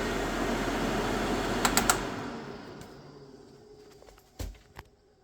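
Vintage Lazy Dazey Model 3100 tabletop hair dryer's blower running with a steady rush of air, then three quick clicks as it is switched off and the fan spins down, the noise fading away over about two seconds. Two knocks follow near the end.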